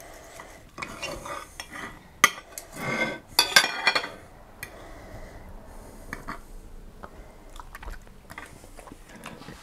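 Metal forks and knives scraping and clinking against plates as pieces of cooked fish are cut off. There are a few sharp clinks about two and three and a half seconds in, then it goes quieter.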